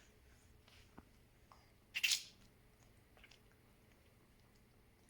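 Faint wet mouth sounds of a baby sucking and chewing on a lemon: small clicks and smacks, with one short breathy burst about two seconds in.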